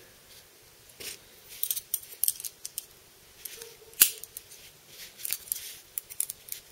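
Small steel parts of a Spyderco Gayle Bradley folding knife (liner, lock and tightly fitted spacers) clicking and scraping against each other as they are worked apart by hand, with one sharp metal click about four seconds in.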